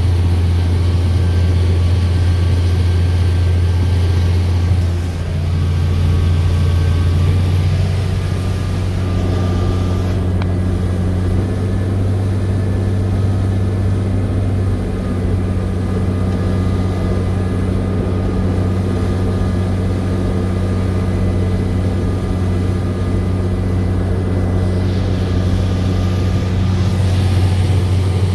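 International farm tractor's engine running steadily under load, a deep even hum with faint steady whining tones above it.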